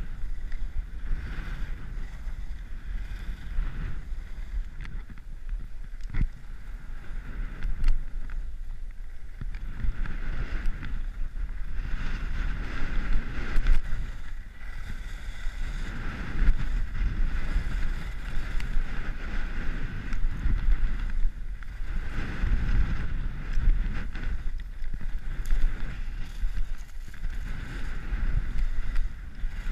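Salomon Rocker II skis scraping over groomed snow in a run of turns, the scraping swelling and easing every second or two, over a steady rumble of wind on the microphone.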